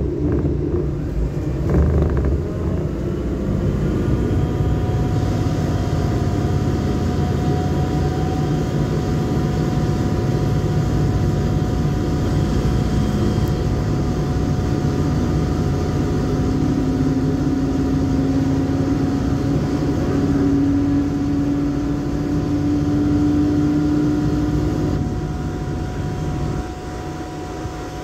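Renfe Cercanías commuter train heard from inside the carriage while under way: a steady rumble of running gear and wheels on rail with a constant motor whine. In the second half a lower whine slowly rises in pitch as the train picks up speed, and the noise eases a little near the end.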